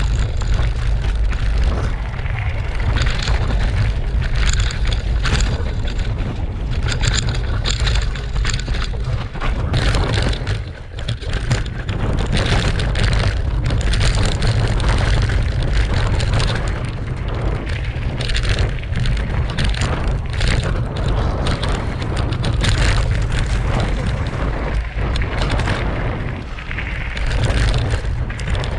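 Mountain bike riding fast down a rocky, gravelly forest trail, heard from a handlebar-mounted GoPro 7: heavy wind rumble on the microphone with tyre noise and frequent rattles and knocks from the bike over bumps. It eases briefly about eleven seconds in.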